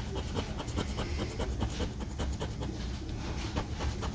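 Scratch-off lottery ticket being scratched with a small plastic scratcher tool: quick repeated scraping strokes rasping off the latex coating.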